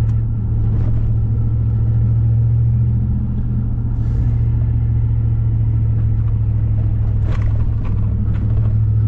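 Steady low drone of engine and road noise inside the cab of a Ford F-150 pickup cruising at light throttle, with its newly installed automatic transmission held in manual mode.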